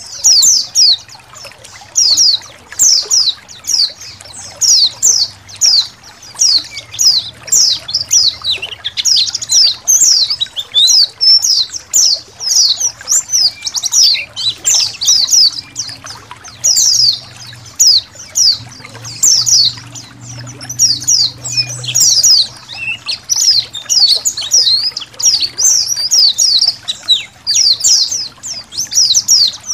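A flock of white-eyes (pleci) chirping continuously: rapid, high, thin notes overlapping one another, over faintly trickling water.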